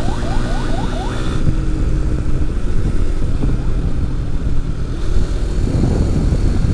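An emergency siren in fast yelp mode, about four rising sweeps a second, cuts off about a second in. Under it and after it comes the steady rumble of a moving motorcycle with wind blasting the microphone, gustier near the end.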